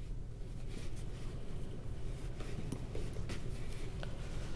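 Faint rustling and a few light clicks of a metal crochet hook being worked through cotton yarn, over a steady low hum.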